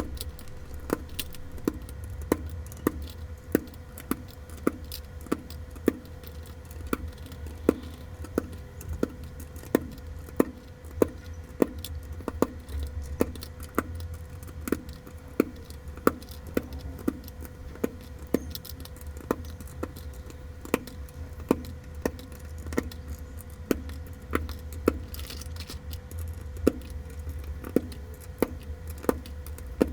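Akko Ocean Blue mechanical keyboard switches being pressed into a hot-swap keyboard plate one after another, each snapping in with a sharp click, about two a second, over a low steady hum.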